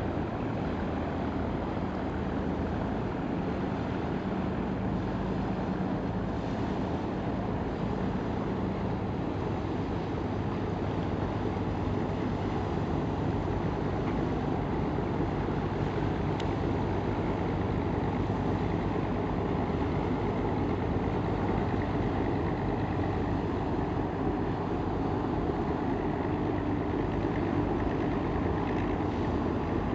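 Engines of loaded steel cargo barges running steadily as the boats pass along the canal: a continuous low drone that grows slightly louder in the second half.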